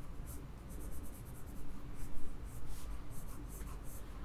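Red coloured pencil scratching across sketchbook paper in a quick run of short, repeated strokes, a few to the second.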